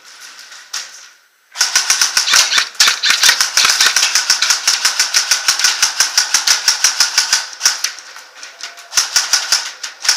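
Airsoft guns firing in rapid strings, sharp cracks many times a second starting about a second and a half in, easing briefly near the end before picking up again.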